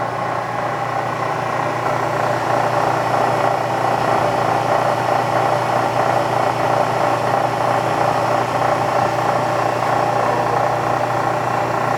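Bridgeport Series 1 2 hp milling machine head running steadily with the spindle in high speed and the quill power downfeed engaged: an even motor and gear hum that gets a little louder about two seconds in.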